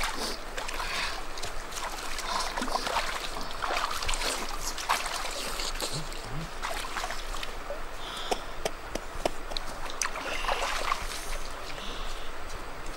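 River water splashing and trickling as hands wash in the shallows at the water's edge, with scattered small splashes and knocks.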